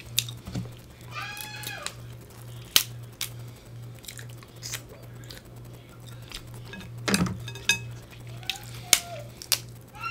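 Snow crab leg shells cracking and snapping as they are broken apart by hand, a string of sharp clicks, two of them much louder than the rest. A low steady hum runs underneath, and twice a short, high, arching voice-like call is heard.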